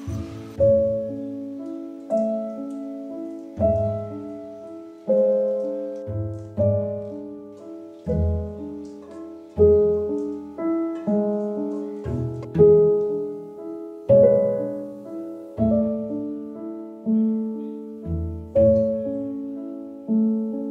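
Soft background piano music: slow chords with low bass notes struck about every second and a half, each fading away before the next.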